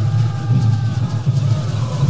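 Experimental electronic soundtrack music: a loud low drone that swells and dips unevenly, with several thin held tones above it, one bending downward about halfway through.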